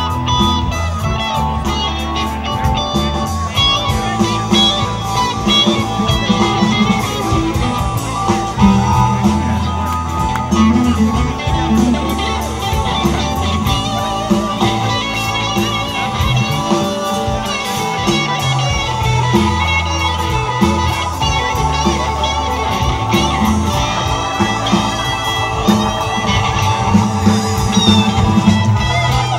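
Live rock band playing an instrumental passage: electric guitar, bass guitar, drum kit and a Nord Electro 6 keyboard, with a steady drum beat.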